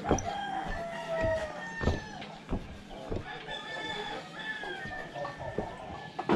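Roosters crowing, several long calls overlapping at different pitches, with scattered sharp knocks.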